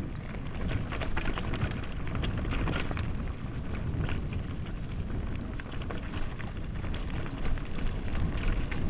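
Mountain bike being ridden over rough ground, with wind rumbling on the camera's microphone and frequent clicks and rattles from the bike and loose stones.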